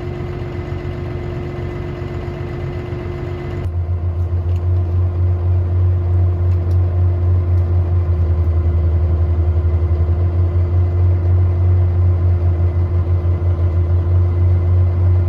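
Engine of heavy land-clearing machinery running steadily. About four seconds in the sound changes abruptly to a louder, deeper, pulsing rumble.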